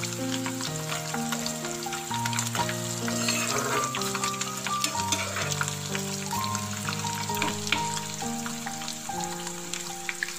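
Masala-coated boiled egg pieces frying in hot oil in a pan, a steady crackling sizzle. Soft background music of held notes that change every second or so plays under it.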